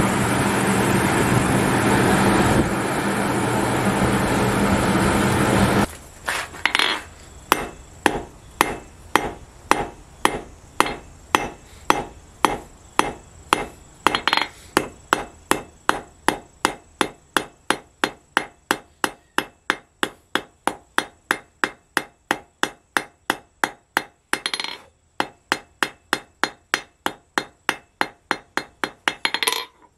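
A coal forge fire blows hard with its air blower running, then cuts off about six seconds in. A hand hammer then strikes a thin bar of hot steel on an anvil in a quick, steady rhythm, about two to three blows a second, with a couple of short pauses.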